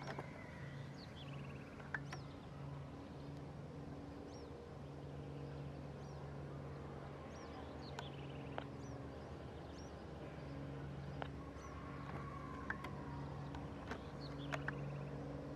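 Birds calling in short, repeated chirps that sweep downward, over a low steady hum that fades in and out, with a few sharp clicks.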